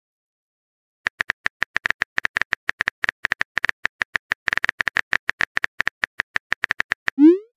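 Keyboard tap sounds of a texting-story app, a rapid train of short clicks, several a second, as a message is typed out letter by letter. Near the end a short rising swoosh marks the message being sent.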